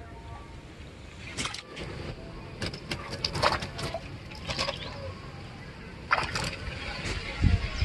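Low rumble of wind on the microphone, with four clusters of short rustling taps and scrapes as a small freshly caught fish and the fishing tackle are handled.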